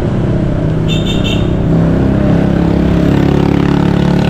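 A road vehicle's engine running steadily as it is driven, its pitch lifting slightly about two seconds in. About a second in there are three quick high beeps.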